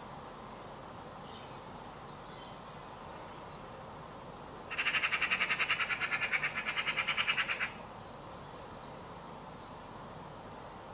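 Eurasian magpie giving its harsh rattling chatter, a fast run of about ten notes a second lasting about three seconds, starting about halfway in. This is the chatter magpies use to mob a predator, here a cat.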